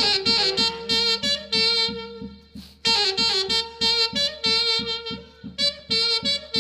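Andean orquesta típica from the Mantaro valley playing an instrumental santiago passage: saxophones carry the melody over a steady quick beat, with a short break about two and a half seconds in.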